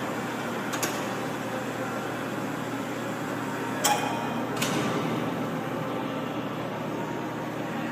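Overhead hoist motor running with a steady hum as it lifts a copier, with three short sharp clicks, the loudest about four seconds in.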